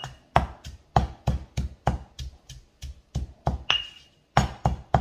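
Stone pestle pounding in a heavy stone mortar, about three strikes a second, with a short pause a little after four seconds. Some strikes leave a brief high ring.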